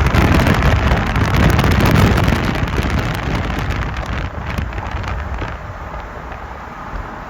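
Rushing noise of a moving vehicle with wind buffeting the microphone, loudest in the first couple of seconds and then easing off.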